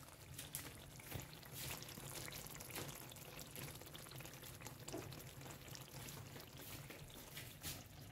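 Thick tomato and onion sauce simmering in a tajine, with faint, irregular small bubbling pops over a light hiss.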